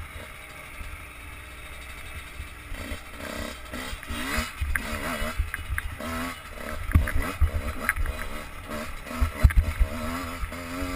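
Enduro dirt bike engine revving up and down with the throttle as it is ridden over rough ground. Knocks from the bumps grow more frequent and louder in the second half.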